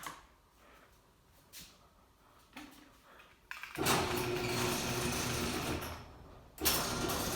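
Garage door opener motor running as the door moves, starting about three and a half seconds in with a steady mechanical hum. It stops briefly near the end and then starts again.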